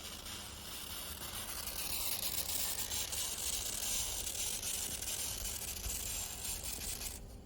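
Steam hissing from a Mamod SE1 toy steam engine with a leaking safety valve and pipe. It builds about a second and a half in, holds steady, then cuts off suddenly near the end, as the engine stops on too little steam pressure, which the owner suspects.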